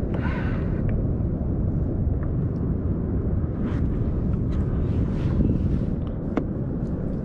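Steady low rumble of wind buffeting the camera microphone, with a few faint scattered clicks.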